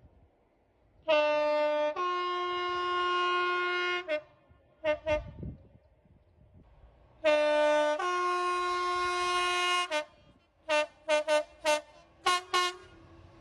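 Two-tone locomotive horn: a long blast that steps from the low tone to the high tone, two short toots, another long low-then-high blast, then a run of about seven quick toots near the end.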